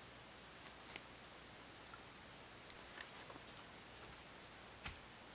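Faint scattered crackles and clicks as a long wooden pole is handled on snowy ground littered with twigs, with one sharper click about a second in and a knock near the end.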